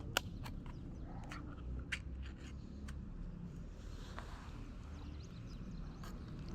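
Cat eating crunchy dry food: irregular sharp crunches over a low steady rumble.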